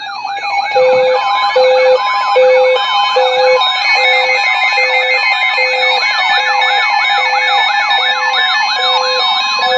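Several NOAA weather radio receivers sound their alert alarms at once for a severe thunderstorm warning. A fast siren-like sweep repeats about four times a second over a low beep that pulses a little over once a second, with steady and chopped high tones layered on top.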